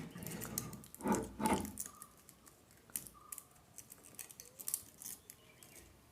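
Fine 35–36 gauge copper winding wire being pulled by hand around the coil slots of a ceiling fan stator: a string of light scrapes, rubs and ticks, with two louder rustles about a second in.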